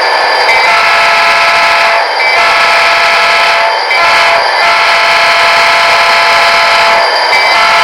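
A model train's sound-system horn, several tones sounding together, blowing the grade-crossing signal: two long blasts, a short one, then a long one.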